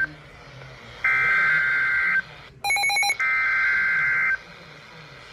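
Emergency Alert System SAME header data bursts: harsh, buzzing digital screeches about a second long, twice, with a gap of about a second between them, marking the start of a new alert. A short, rapidly pulsing multi-tone beep falls between the two bursts.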